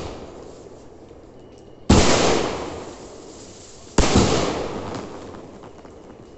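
Aerial fireworks bursting overhead: two sharp bangs about two seconds apart, each fading out slowly over a second or two, and another bang right at the end.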